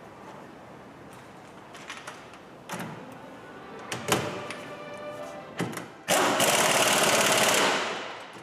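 An impact wrench hammering on a van's front hub nut in one rattling burst of about a second and a half, starting about six seconds in, tightening the nut after a wheel bearing replacement. Before it come a few metallic clinks and knocks from the tool being fitted.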